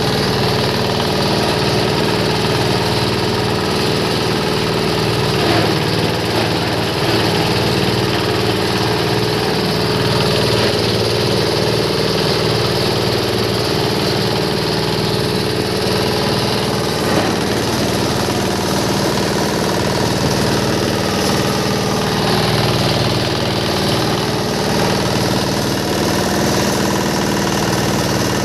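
Cloth-and-foam waste shredder machine running steadily, a constant mechanical drone with a faint knock or two partway through.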